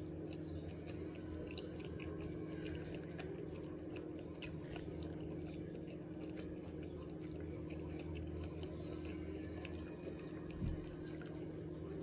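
A person chewing food close to the microphone, with many small wet mouth clicks and smacks, over a steady low hum. A single dull thump comes about ten and a half seconds in.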